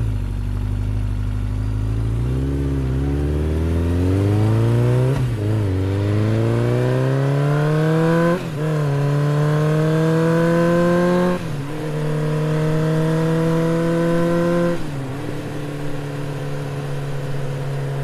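Motorcycle engine accelerating through the gears. Its pitch climbs, then drops back sharply at each of four gear changes, about 5, 8.5, 11.5 and 15 seconds in, and settles to a lower, steadier note near the end.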